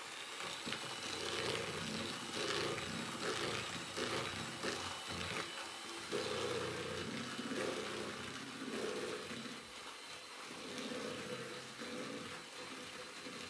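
Electric hand mixer running at a raised speed, its twin beaters churning butter and sugar in a plastic bowl: a steady motor whine over an uneven churning rattle as the beaters work through the mixture. This is the creaming stage, run until the mix goes pale and crumbly.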